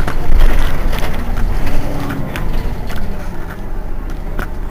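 Mercedes-Benz Citaro city bus running, a deep rumble with a few sharp knocks and rattles, easing off over the second half.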